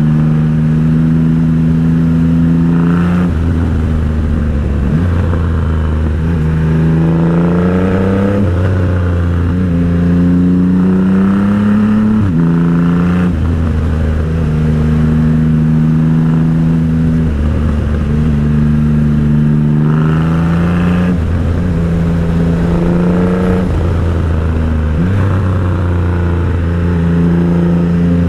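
Motorcycle engine running under way. Its pitch climbs under acceleration and drops sharply at each gear change, between stretches of steady cruising.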